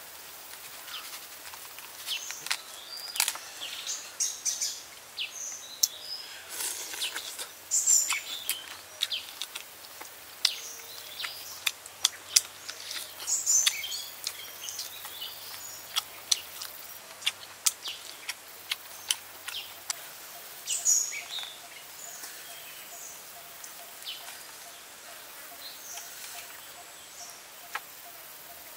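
Crisp skin and meat of a grilled Muscovy duck crackling and tearing as it is pulled apart by hand, in many short sharp clicks that thin out over the last third. Birds chirp in the background.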